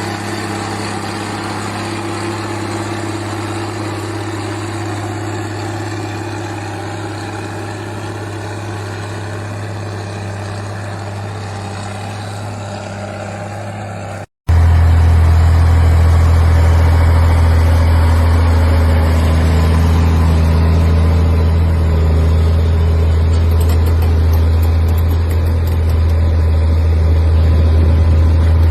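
Tractor engine running steadily with a low, even hum. About halfway through the sound cuts off abruptly and a louder, deeper engine drone takes over.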